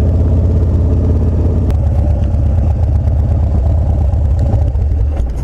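Harley-Davidson Dyna Street Bob's V-twin engine running while riding, a loud, steady low engine note that eases off just before the end.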